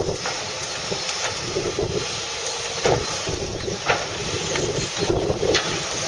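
Fiberpac 370B brash baler on a John Deere 1490D base machine at work: engine and hydraulics running steadily under load, with several sharp cracks of branches snapping as the crane pushes brash into the baler.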